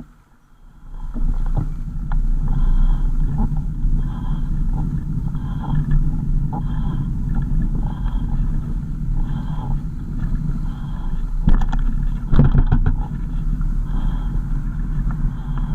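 A car driving, heard from inside the cabin: a steady low rumble of engine and road noise that starts about a second in. A soft short blip repeats about every 0.7 s, and a few knocks and rattles come between 11 and 13 seconds in.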